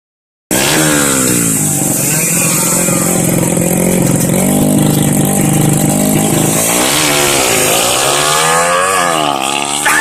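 Tuned Yamaha Jupiter Z motorcycle engine, fitted with a Kaze 100 piston and a reworked camshaft, running steadily at a fast idle, then revved up and back down about three times near the end.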